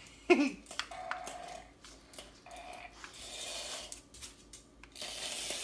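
A small remote-control toy's motor whirring in short runs, with clicks and clatter as it moves. A short, loud, falling-pitched sound comes about a third of a second in.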